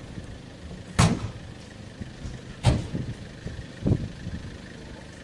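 A vehicle engine idling with a steady low rumble, broken by three sharp cracks: one about a second in, one near the middle, and a duller one a little later.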